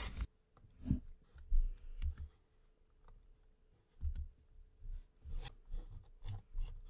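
A dozen or so short, irregular clicks from a computer keyboard and mouse, made while code is being edited.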